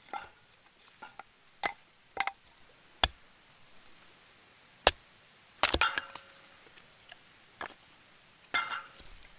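Irregular sharp knocks and clinks, about a dozen, with the loudest cluster a little past the middle, as of hard objects being handled and set down.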